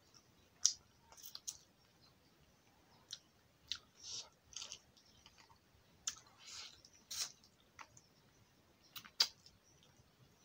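Close-up eating sounds: lip smacks and chewing clicks as a mouthful of rice and fish is eaten by hand, scattered irregularly with a few short soft rustles between them.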